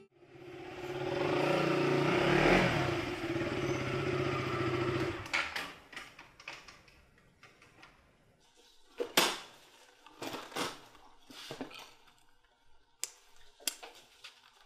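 Motorcycle engine running as the bike rides in, growing louder over the first two seconds or so, then cut off about five seconds in. After that come a few scattered sharp clicks and knocks.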